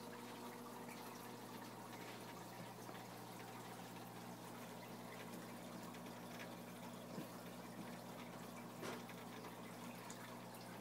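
Aquarium filter running: a faint steady hum with water trickling, and a couple of light clicks late on.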